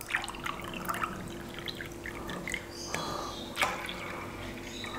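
Water poured from a glass tumbler into an anodized aluminium tray of washed dal (split lentils), trickling and splashing onto the grains, with a couple of sharp clicks around three seconds in.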